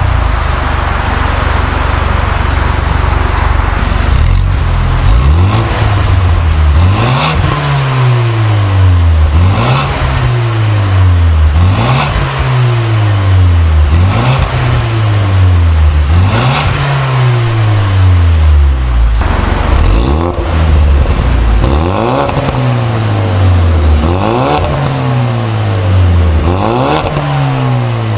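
Ford Mustang 2.3L EcoBoost turbocharged four-cylinder running through a full stainless-steel valved exhaust with the valves closed. It idles for a few seconds, then is revved about a dozen times, roughly every two seconds, each rev climbing quickly and falling back more slowly.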